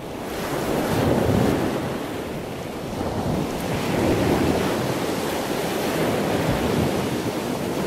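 Ocean surf breaking and washing up a sandy beach, a steady rush that swells about a second in and again around four seconds in, with wind buffeting the microphone.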